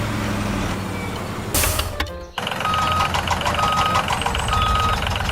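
A vehicle engine running steadily. About two and a half seconds in it cuts off abruptly, and a reversing alarm starts beeping, roughly once a second in half-second beeps, over a low engine rumble.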